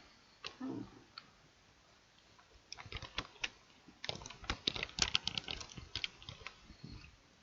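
Computer keyboard typing with clicks: a few scattered keystrokes, then a quick run of clicks from about three seconds in until near the end.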